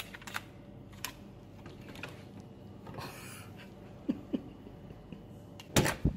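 Handling noises from a hotel room key and door lock being worked: scattered small clicks and a short rustle about three seconds in, then two sharp knocks near the end, over a faint steady hum.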